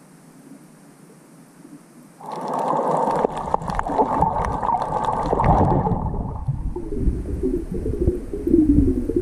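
Water sloshing and gurgling against an underwater camera, faint and muffled at first, then suddenly loud about two seconds in with crackling, turning to a low rumbling gurgle with wavering low tones after about six seconds.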